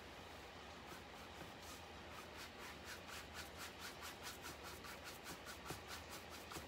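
Paintbrush scrubbing acrylic paint onto canvas in quick back-and-forth strokes, about five a second. The strokes begin about a second in.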